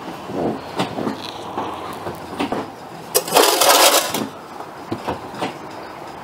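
Scattered knocks and clicks of work at a car's front brake caliper while the brake pedal is pumped to force the caliper piston out of its bore, with a loud rushing hiss for about a second near the middle.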